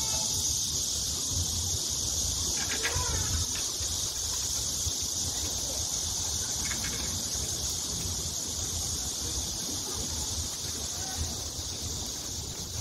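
A steady, high-pitched drone of insects that holds unbroken, with faint distant voices now and then.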